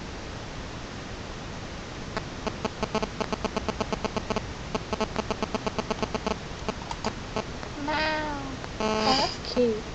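Mobile phone interference on the webcam audio: a rapid run of buzzy 'dit-dit-dit' beeps, about five a second, for about four seconds. Near the end a voice gives a few short, pitch-bending meows.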